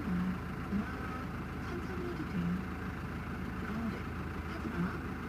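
A steady low engine-like hum, with short low murmurs breaking in every second or so.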